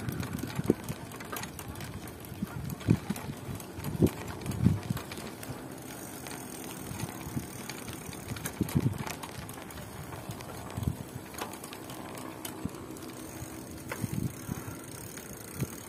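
Bicycle riding noise: irregular low knocks and rattles as the bike goes over bumps, over a steady background noise.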